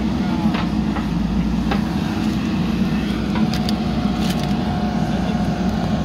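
JCB 3DX backhoe loader's diesel engine running steadily under load as the backhoe digs soil, with a few sharp knocks over it. A faint steady whine joins about halfway.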